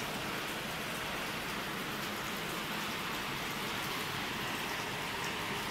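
Steady, even hiss and hum of machinery running on a puffed corn snack (Kurkure) production line.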